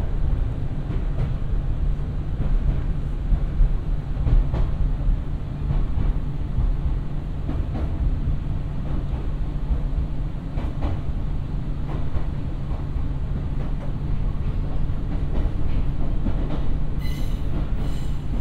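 Nankai 2200 series electric train running, heard from inside the car: a steady low rumble with a sharp clack of the wheels over rail joints every second or so, and a brief high-pitched squeal near the end.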